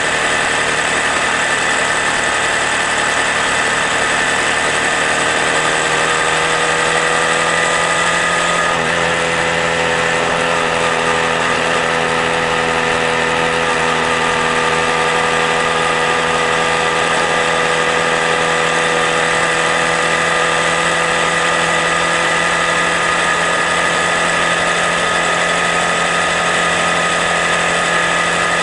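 Honda Grom motorcycle's small single-cylinder engine running under way, its pitch rising gently over the first several seconds and then holding steady at cruising speed, with constant wind rush over the microphone.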